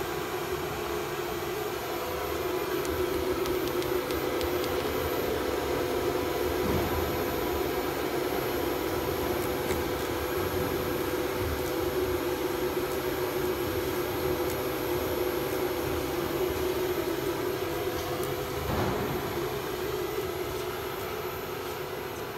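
Spindle of a 4-axis CNC router running with a steady whine as its long thin bit cuts a block of polystyrene foam turning on the rotary axis.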